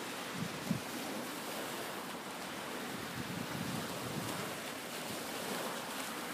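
Small waves washing onto a shingle beach, a steady surf hiss, with wind buffeting the microphone in low bumps in the first second.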